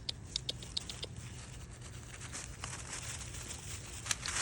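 Light rustling with a quick run of small sharp clicks in the first second and another click near the end, the kind of noise made by movement over dry ground cover or close handling.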